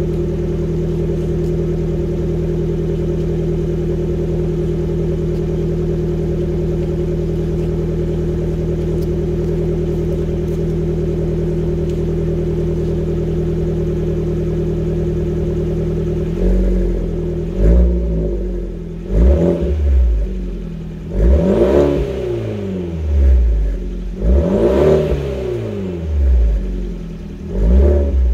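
Exhaust note of a Fiat 124 Abarth's 1.4-litre turbocharged four-cylinder through the stock 1.7-inch crosspipe and a straight-through 2.5-inch System One muffler. It idles steadily for about sixteen seconds, then is blipped repeatedly: about eight short revs, each rising and falling back.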